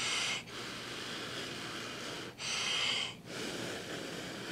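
A person blowing on a hot forkful of food to cool it: two puffs of breath about two and a half seconds apart, the second one longer, over a steady low hiss.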